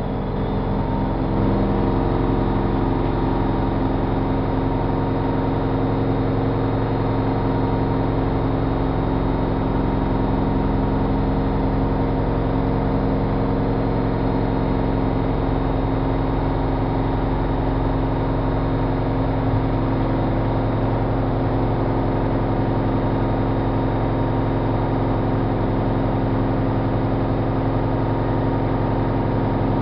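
Privileg Single 42614 washing machine running with a steady mechanical hum made of several steady tones, which settles to an even level about a second in.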